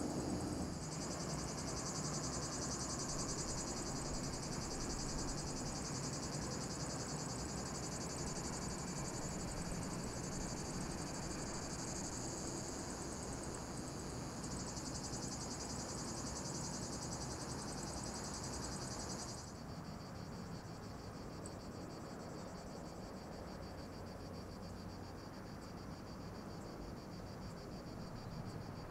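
A loud, steady chorus of cicadas, a fast pulsing buzz, over a low steady rumble. The chorus drops off sharply about two-thirds of the way through.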